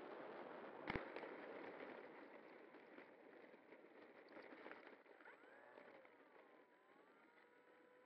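Small RC model airplane rolling out on asphalt after landing. A rushing noise of wheels and air fades as it slows, and a sharp knock comes about a second in. Near the end a faint whine with a few steady tones rises slightly.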